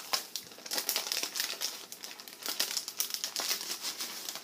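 Crinkling of a clear plastic packet and rustling of paper as stationery sheets and envelopes are pulled out and handled, in quick irregular crackles.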